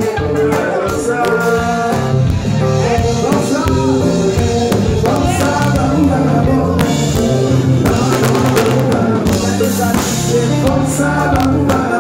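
Live band music with singing: a male vocalist over keyboard, electric bass, drum kit and hand percussion, played loud.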